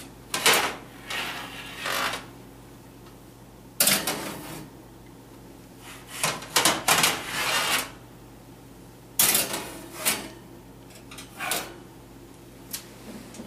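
Metal cookie sheets and the oven rack clattering and scraping in several separate bouts as trays of rolls are slid into the oven, over a steady low hum.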